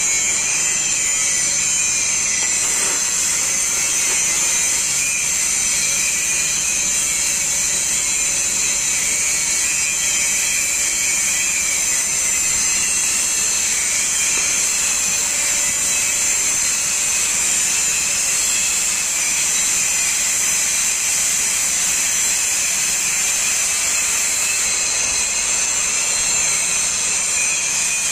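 Oxy-fuel gas cutting torch hissing steadily and loudly as it cuts through steel plate about three centimetres thick.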